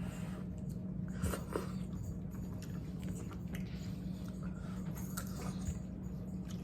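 People chewing and eating a pasta and greens meal close to the microphone, with scattered small clicks, over a steady low hum.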